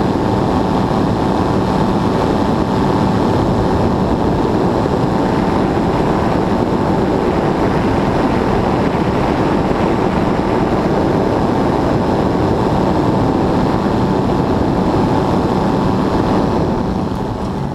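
Powered hang glider (ultralight trike) engine and propeller running steadily in flight, heard under heavy wind rushing over the microphone.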